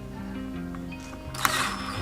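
Background music with a steady, stepping bass line, and a single sharp click about one and a half seconds in.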